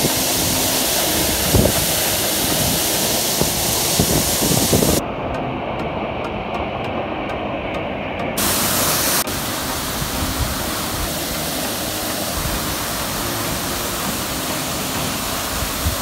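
Sajikot Waterfall pouring into its plunge pool: a loud, steady rush of falling water close by. The hiss turns duller for a few seconds in the middle, then comes back full.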